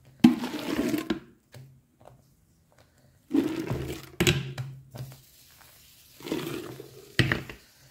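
Plastic containers scooping and pouring foamy liquid laundry soap in a plastic basin: several short bouts of sloshing and splashing, with a sharp knock a little after seven seconds.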